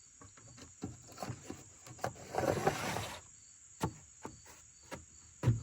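Crickets chirping steadily in the background. Over them come scattered light clicks and knocks, a rustle of about a second starting about two seconds in, and a sharper knock near the end.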